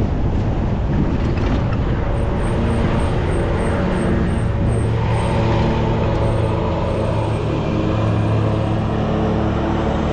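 A car driving, with steady engine and road noise; a low, steady engine hum grows stronger about halfway through.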